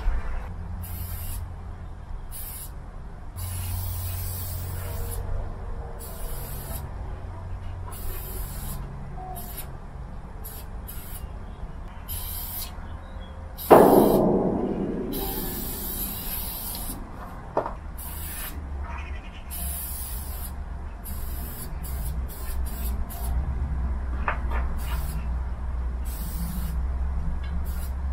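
Aerosol spray paint can spraying in many short, irregular bursts of hiss as paint is put onto a freight wagon's metal side. About halfway through there is one sudden loud noise that fades over about two seconds.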